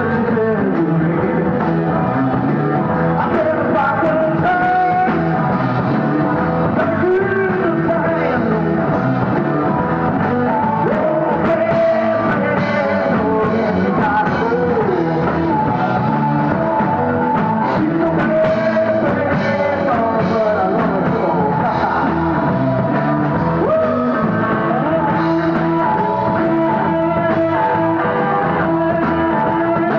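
Rock band playing live, a singer over the band, loud and even.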